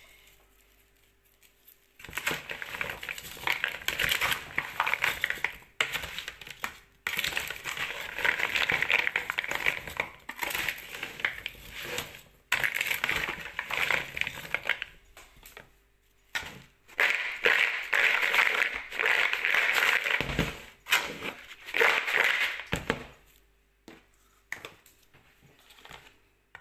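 Raw cut potato fries being stirred and tossed with a slotted spoon in a plastic bowl: a dense rustling scrape of the wet potato sticks against each other and the bowl. It comes in spells of a few seconds with short pauses between.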